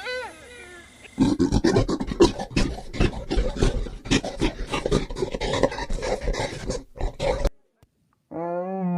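Animal calls. A rough, rapidly pulsing call runs for about six seconds and is cut off abruptly. About a second before the end, a different animal's steady pitched call begins.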